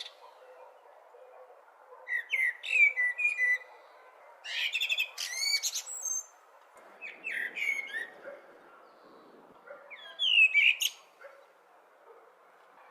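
Blackbird singing: four separate phrases with short pauses between, each a whistled warble that ends in a higher, thinner twitter. A faint steady hiss lies underneath.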